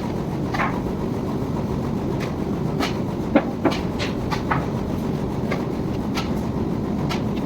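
Wire-drawing machine running with a steady low rumble and irregular metallic clicks and knocks, the sharpest about three and a half seconds in.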